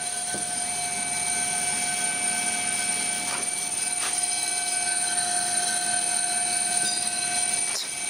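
Three-phase washing-machine motor from a 1990s Simpson washer running slowly on a variable frequency drive, giving a steady whine made of several high tones at once. It runs evenly, and the whine cuts off shortly before the end.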